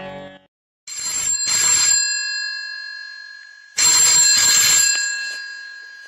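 Telephone ringing with a bell-like double ring about a second in, repeated about three seconds later, each ring fading away before the next.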